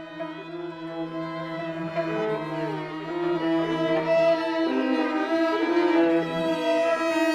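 Bowed string ensemble playing sustained notes with sliding glissandi, a low cello drone beneath higher violin lines, growing louder through the passage.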